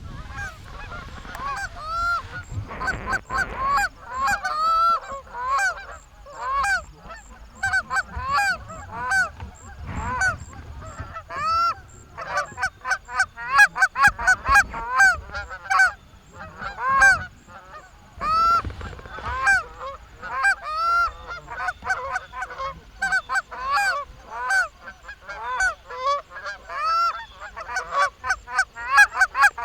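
Canada geese honking and clucking: a rapid, unbroken run of short, loud honks, densest in the second half.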